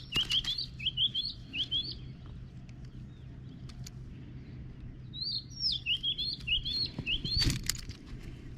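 A songbird singing two phrases of quick, chirpy notes, one at the start and another about five seconds in, with a few sharp clicks near the start and near the end.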